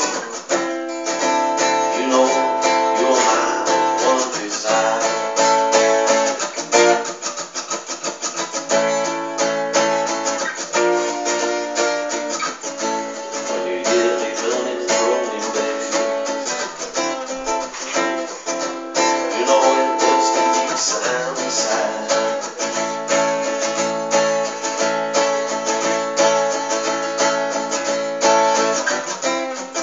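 Acoustic guitar played solo in a blues, strummed and picked steadily.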